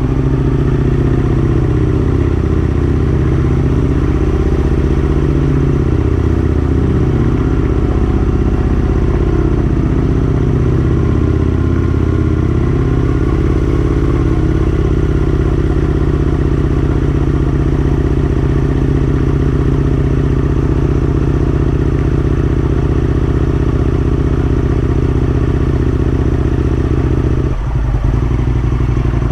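Aprilia RSV1000's V-twin engine running steadily as the motorcycle is ridden, with a brief drop about two seconds before the end.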